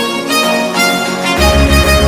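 Background music: a bowed-string melody over sustained chords, with a heavy electronic bass beat at about four pulses a second coming in about a second and a half in.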